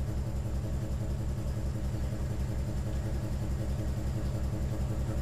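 Railway diesel engine idling: a steady low rumble with a quick, even throb.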